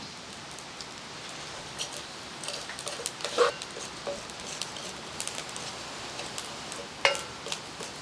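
Whole spices dry-roasting in an iron kadai over a wood fire, crackling and rustling as a metal spatula stirs them. The spatula strikes the pan with a sharp ringing clink twice, about three and a half seconds in and again near the end.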